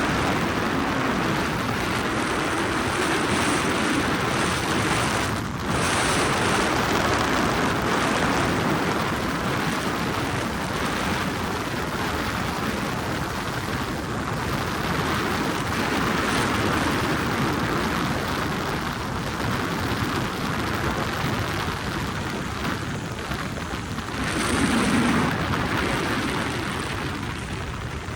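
Helicopter in flight: steady, loud rotor and engine noise, with a brief dip about five seconds in and a louder swell near the end.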